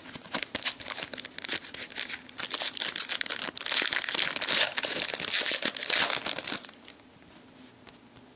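Foil trading-card pack wrapper being torn open and crinkled by hand, a dense crackling that goes on for about six and a half seconds and then stops.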